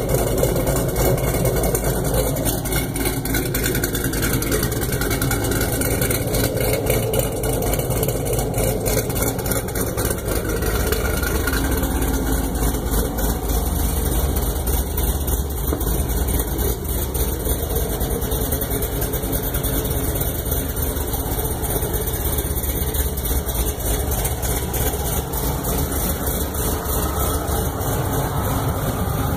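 Camaro ZL1's supercharged 6.2-litre V8, fitted with a BTR Stage 3 heads-and-cam package and Kooks 2-inch long-tube headers into the factory exhaust, idling steadily.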